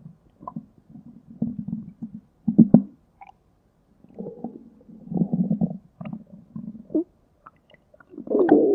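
Human stomach growling: a run of short, irregular gurgles and rumbles, with a louder, longer rumble starting near the end.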